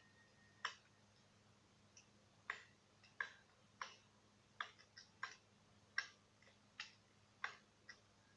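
Burning wood in a large bonfire crackling, with sharp single pops at irregular intervals, roughly one or two a second, over a faint steady hum.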